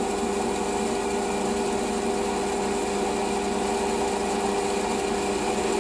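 Metal lathe running with its spindle slowed, a steady hum of motor and gearing made of several held tones, no cutting heard.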